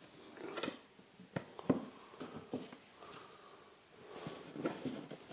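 MDF drawer parts being fitted together by hand, a series of light knocks and taps with handling and rubbing between them; the sharpest knock comes about a second and a half in.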